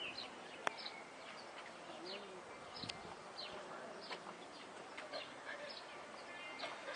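Small birds chirping faintly in the open air: scattered short, high chirps, with one sharp click about a second in.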